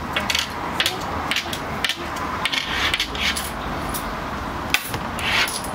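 Snack-stall counter work: a run of short knocks, clicks and scraping rustles as items are handled, over a steady background hum.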